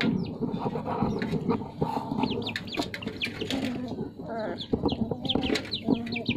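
A litter of puppies crowding and eating, with chewing and scuffling under many short, high, falling chirps. From about four seconds in, some longer pitched squeals or clucks join in.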